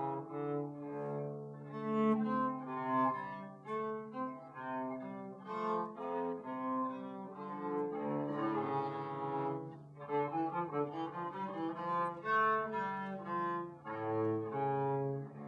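Viola da gamba played solo with a bow: a small study piece, a melody of many short bowed notes moving up and down in pitch.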